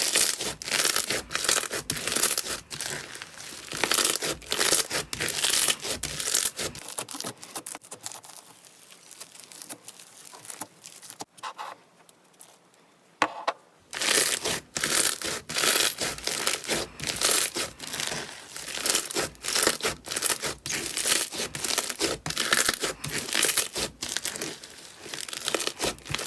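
Slime being squeezed, stretched and poked by hand, with dense crackling and popping. It goes much quieter for several seconds in the middle, with one sharp snap, and then the crackling picks up again.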